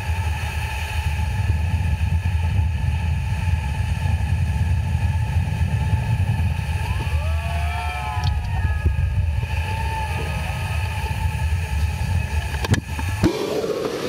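Motorboat running close to a waterfall: a steady heavy low rumble of engine and falling water, which drops away about a second before the end.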